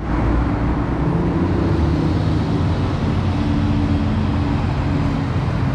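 Road traffic on a city street: cars and a heavy truck driving past, a steady mix of engine hum and tyre noise.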